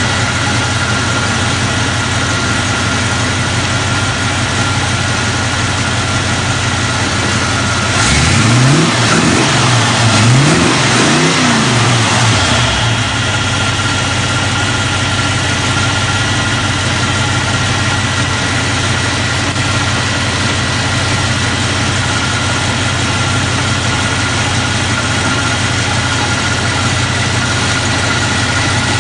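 A muscle car's carbureted V8 idling steadily. About eight seconds in it is revved up and down several times in quick succession, then settles back to a steady idle.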